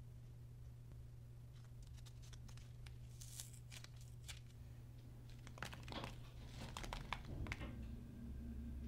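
Soft foam hearts handled in a small glass bowl and dropped onto slime: faint crinkly rustles and light taps, a few at first and busier in the second half.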